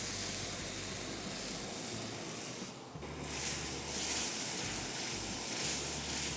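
Ginger, garlic, green chilli and tomato paste sizzling in hot ghee and fried onions in a kadai as it is stirred with a wooden spatula: a steady hiss that dips briefly about three seconds in.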